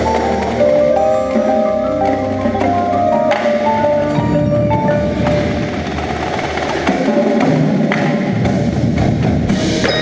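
Indoor percussion ensemble playing: quick runs of struck xylophone and glockenspiel notes over sustained low bass notes, turning into a denser, noisier wash from about four seconds in.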